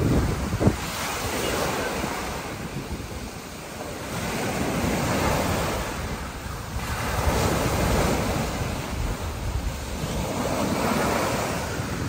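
Small ocean waves breaking and washing up a sandy beach, the hiss of the surf swelling and easing every few seconds. Wind buffets the microphone with low rumbling gusts near the start.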